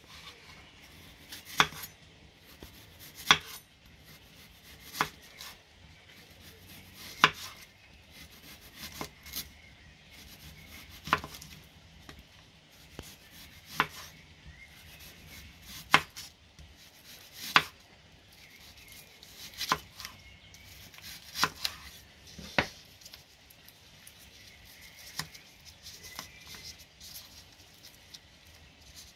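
Kitchen knife slicing a peeled onion into rings on a wooden cutting board, each cut ending in a sharp knock of the blade on the board, irregularly every second or two.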